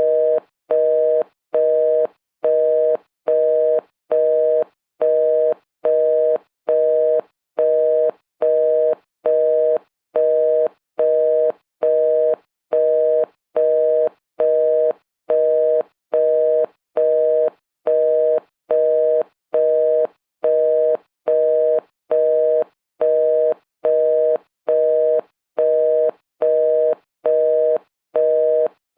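Telephone busy signal: a two-tone beep repeating at an even rhythm, short beeps with equal gaps, about one a second.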